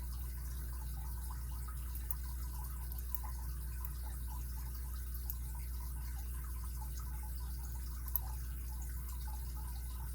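Faint scattered ticks and light scraping of a lock pick working the pins inside a padlock's core while it is held under tension, with one sharper click about eight seconds in. A steady low electrical hum sits under it throughout.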